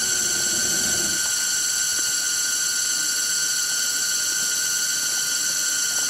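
Steady, unbroken high-pitched drone of forest insects, several pitches layered and holding level.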